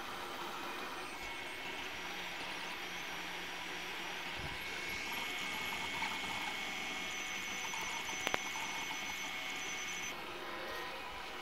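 FDM 3D printers running mid-print: a steady whir of cooling fans and motors. A brighter, steady high whine joins from about five to ten seconds in, and there is one short click near eight seconds.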